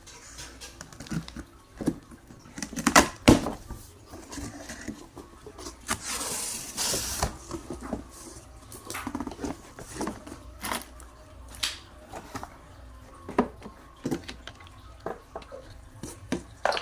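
A package being handled and opened by hand: scattered taps, clicks and knocks, with a longer stretch of rustling or scraping about six seconds in.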